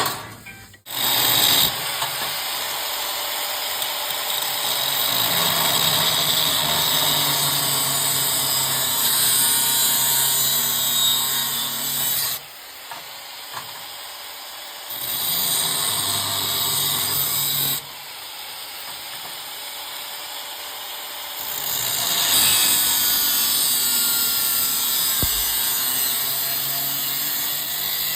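Angle grinder cutting or grinding steel tube, running in long passes that drop off briefly about halfway and go quieter for a few seconds after.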